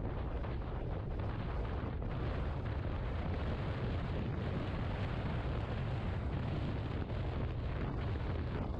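Steady wind buffeting on the microphone of a Yamaha XMAX 250 maxi scooter ridden at road speed: a dense, even low rumble, with the scooter's running and tyre noise under it.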